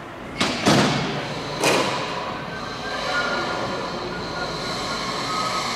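Three sharp knocks from work on the riveted metal fuselage frame in the first two seconds, the second the loudest, followed by steady workshop background noise.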